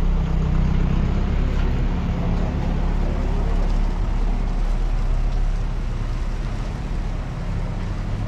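Outdoor street noise dominated by a steady low rumble, with no distinct event standing out.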